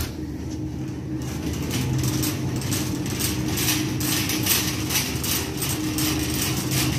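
Wire shopping cart rolling fast along a store aisle, its basket and wheels rattling in quick repeated clatters that start about a second in, over a steady low hum.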